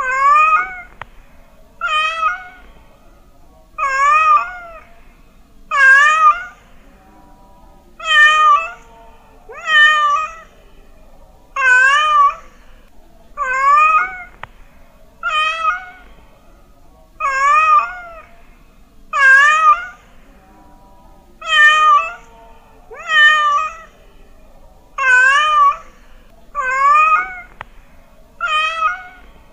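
A cat meowing over and over, about sixteen meows with one roughly every two seconds, each with a wavering pitch.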